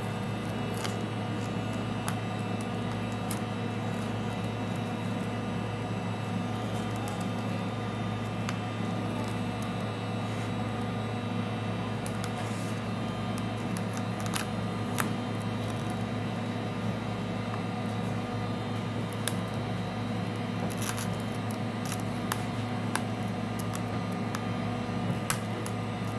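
Heat gun running with a steady hum, with scattered small clicks from a pry tool working at the cracked glass.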